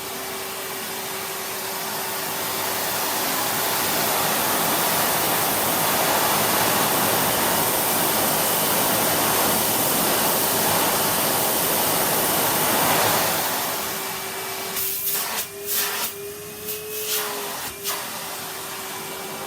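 Vacuum cleaner with a crevice tool running: a steady airflow rush over a constant motor whine, growing louder through the middle. About three-quarters of the way in it turns uneven, with short sharp surges and drops.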